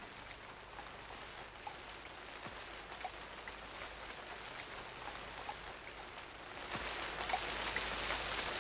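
Steady, rain-like hiss of lake water, getting louder about seven seconds in.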